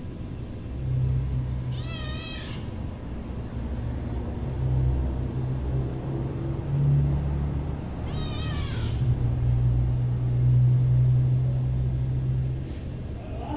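Hungry domestic cat meowing twice, short high-pitched calls a few seconds apart, over a louder low steady hum that drops away near the end.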